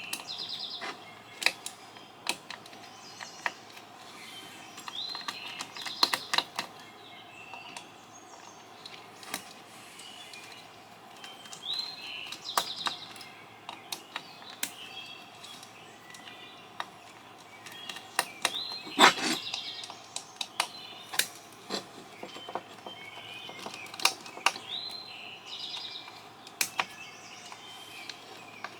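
Irregular small clicks and clinks of hand tools working the small screws and metal parts of a satellite LNBF, with one louder knock about two-thirds of the way through. A bird's short rising call sounds a few times in the background.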